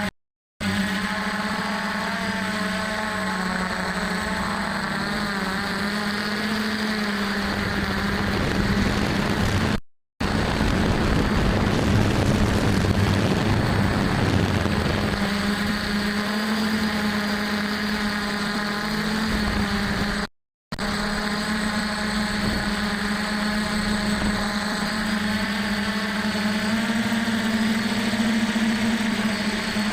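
A DJI F450 quadcopter's four stock motors and propellers droning steadily in flight, the pitch wavering slightly as the throttle shifts. The drone turns rougher and noisier for a few seconds in the middle, and the sound cuts out completely for a split second three times.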